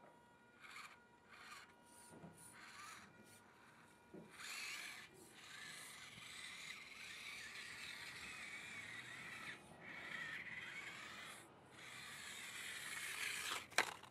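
Small electric motor and gears of a Losi 1/24 micro rock crawler whining faintly in short bursts as it crawls up a step, then running on more steadily with a wavering high whine. One sharp click near the end.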